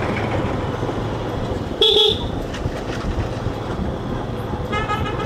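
Steady wind and road noise from riding a motorcycle, picked up by a helmet-mounted microphone, with a loud short vehicle horn toot about two seconds in. Near the end a fainter horn sounds in quick repeated pulses.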